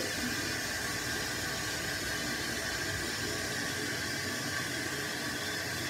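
Steady, even hiss of background room noise with a faint hum and no distinct events.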